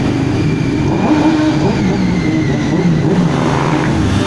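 Motorcycles riding past one after another, their engines revving, the pitch rising and falling as each goes by. A sport bike passes close near the end.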